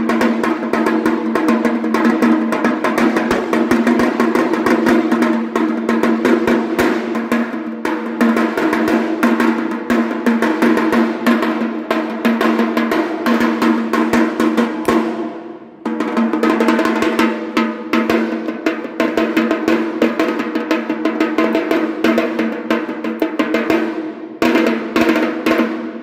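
A 12-inch steel tasha drum played with two thin sticks: fast, continuous rolls of sharp strokes over a ringing drumhead, with a brief break about fifteen seconds in and a short dip near the end.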